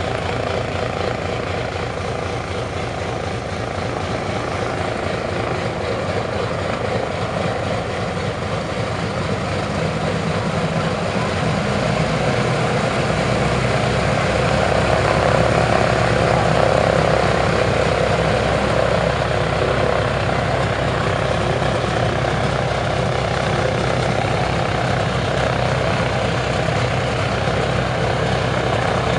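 Boeing B-29 Superfortress's Wright R-3350 eighteen-cylinder radial engines running at idle with the propellers turning, a steady heavy drone. The sound grows somewhat louder about twelve seconds in.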